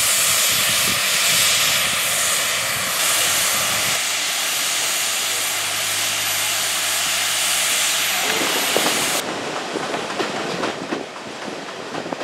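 Ivatt Class 2MT steam locomotive moving off with a loud, steady hiss of steam from around its cylinders. About nine seconds in, this gives way to the sound from a moving carriage: running noise broken by many sharp clicks of wheels over the rails.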